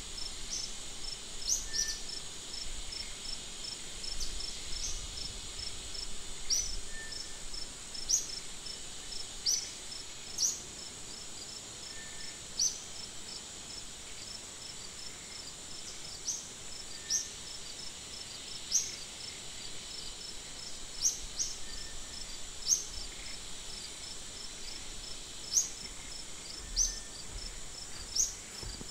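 Chorus of insects: a steady high-pitched buzz with a fast, even pulsing trill, and short sharp high chirps every second or two.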